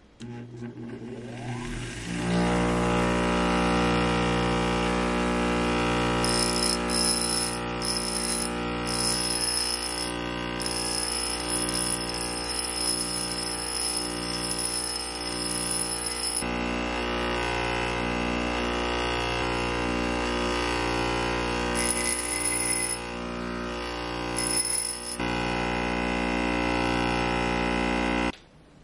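A 3/4 HP bench grinder switched on, spinning up over about two seconds to a steady motor hum and whine. A steel punch is pressed against its stone wheel on and off, adding a high grinding whine. The sound cuts off suddenly near the end.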